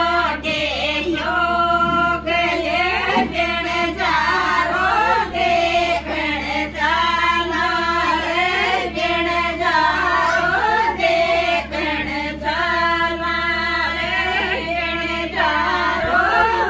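Women singing a Rajasthani folk song together in unison, unaccompanied, in long held sung phrases.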